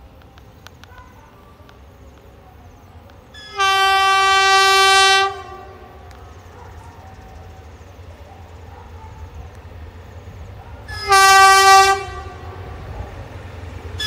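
Horn of an approaching GEK-class diesel locomotive: two steady one-pitch blasts, the first a long one a few seconds in and a shorter one near the end, over the low rumble of the oncoming train.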